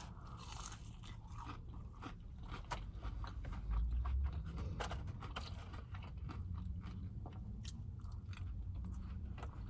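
Close-up chewing and biting of crispy fried food, with many small irregular crunches and crackles.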